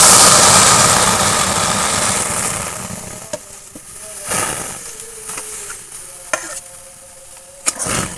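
Thick palm fruit pulp sizzling loudly as it lands in a hot kadai, the sizzle fading over the first few seconds. Near the end, a metal spatula clicks and scrapes against the pan as stirring begins.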